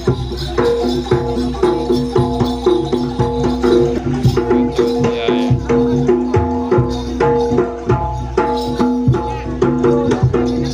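Live jaranan music: fast, dense drumming and clattering percussion under a melody of held notes that shift step by step.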